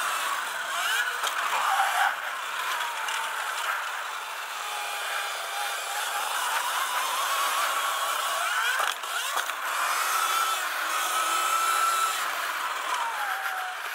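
Sur-Ron Light Bee electric dirt bike being ridden on a dirt track: the electric motor's whine rises and falls with speed over wind and drivetrain rattle, with a couple of sharp knocks about nine seconds in.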